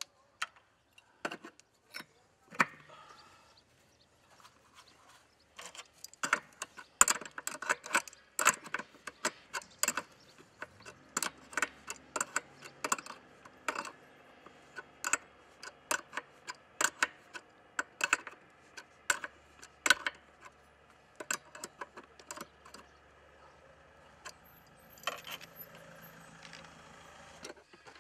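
Irregular sharp metallic clicks and clinks from a hand wrench and copper pipe fittings being handled and tightened. A few isolated taps come first, then a dense run of clicks from about six seconds in that goes on until near the end.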